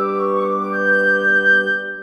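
Background music: a held chord of sustained, woodwind-like notes, with a higher note joining partway through, starting to fade out near the end.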